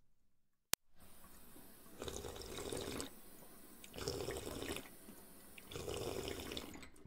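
Underwater ambience: bubbling, watery surges that swell and ebb about every two seconds. A single sharp click less than a second in, followed by a brief dropout, breaks it.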